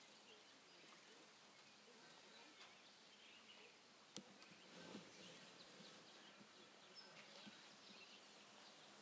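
Near silence: faint background ambience, with a single sharp click a little over four seconds in.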